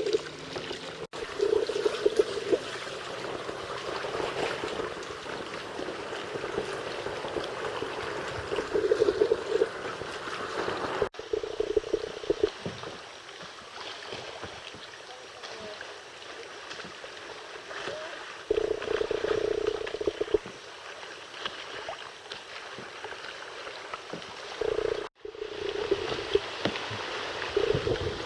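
Wind on the microphone and water sloshing around a kayak on a windy lake, as a steady rushing noise. It breaks off abruptly three times where clips are joined.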